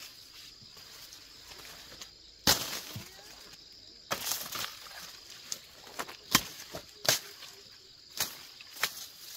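Irregular strikes and swishes of hand tools cutting and clearing grass, the loudest about two and a half seconds in, over a steady high insect drone.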